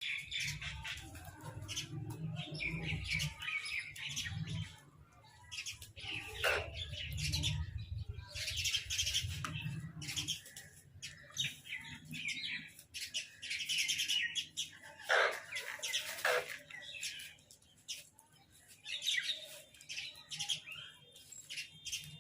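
Birds calling in repeated flurries of rapid, high chirps, with a few sharp calls that fall steeply in pitch. A low rumble sits underneath for the first half.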